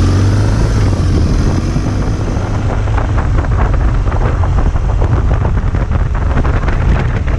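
Adventure motorcycle pulling away from a stop, its engine note rising over the first second or two, then running on at speed with wind noise on the microphone.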